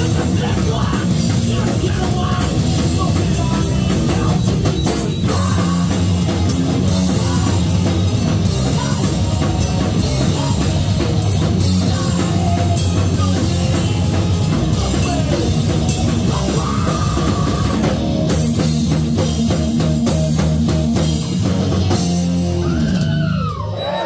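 Live rock band playing loud: electric guitars, bass guitar and drum kit. Near the end the full band drops out, leaving notes that slide in pitch.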